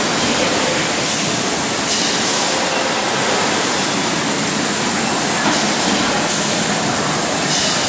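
Water bottling line running: a steady, loud, even hiss-like machinery noise from the conveyor and plant equipment, with no distinct rhythm or individual knocks.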